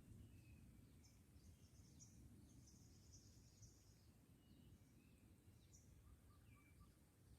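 Near silence: faint outdoor ambience with a low rumble and scattered faint, high chirps and short whistles, mostly in the first few seconds.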